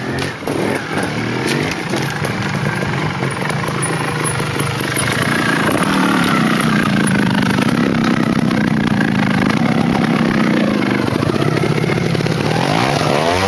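Trials motorcycle engine running close by, its pitch wavering as the throttle is worked over rocks and up a loose dirt bank, and revving up near the end.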